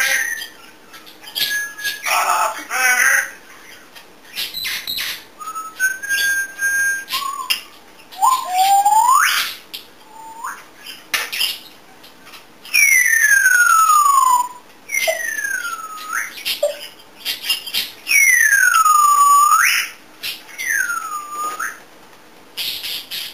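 African grey parrot whistling and chirping. Short chirps, clicks and brief whistled notes come first. From about eight seconds in there are several long sliding whistles: one rises, others fall from high to low, and two swoop down and back up.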